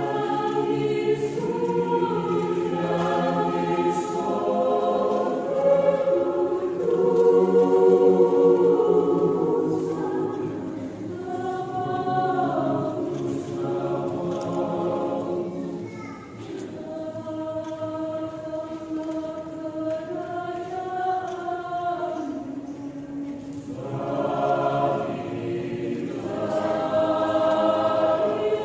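Mixed choir of men and women singing in parts, holding chords that change together. It is loudest a few seconds in, softens around the middle, then builds again near the end.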